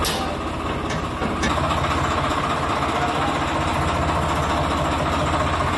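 Swaraj 855 tractor's diesel engine idling steadily with an even low throb. Its note shifts slightly about a second and a half in.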